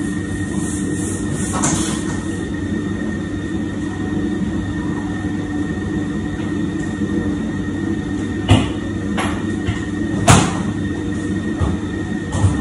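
Large electric mixer running steadily at slow speed, beating a big batch of butter shortbread dough, with a constant hum and a thin high whine. Four sharp knocks come in the last few seconds, the loudest about ten seconds in.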